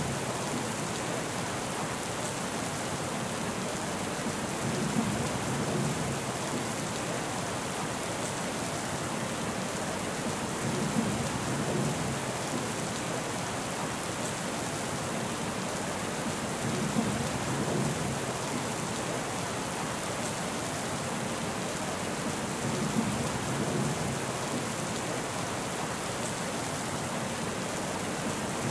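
Steady rain falling, with a low swell and a faint tick repeating about every six seconds.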